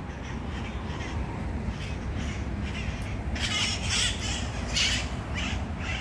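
Small parrots giving harsh, repeated squawking calls, faint at first and louder and closer together from about three seconds in.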